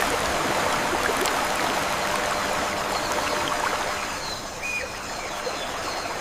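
Steady rushing of a flowing stream, fading slightly toward the end.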